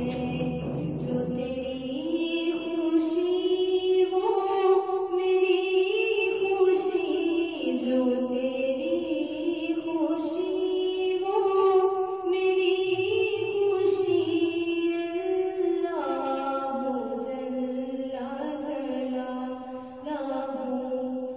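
A girl's solo voice singing an Urdu hamd (a devotional praise poem to Allah) without instruments. She holds long, drawn-out notes that step up and down through the melody.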